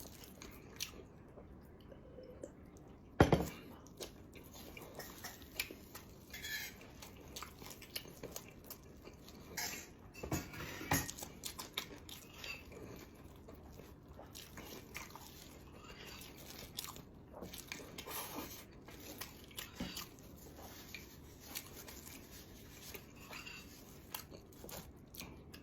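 Quiet chewing and biting of food, with scattered small mouth clicks and smacks. A single sharp knock about three seconds in is louder than anything else, and there is a busier spell of chewing noise around the middle.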